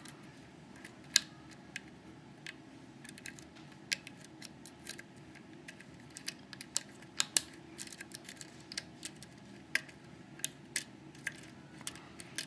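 Irregular small metallic clicks and ticks of a hook pick probing the top pin stacks of a Schlage Primus lock under tension, checking that all six pins are set. The two sharpest clicks fall about a second in and a little past seven seconds.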